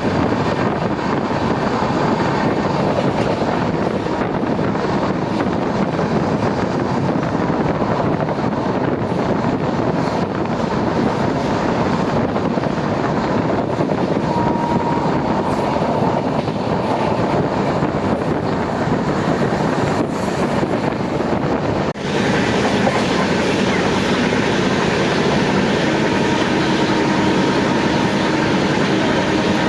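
Passenger train running along the track: a steady rail rumble with wheel clickety-clack. About three quarters of the way through, the noise dips for a moment and then carries on slightly changed.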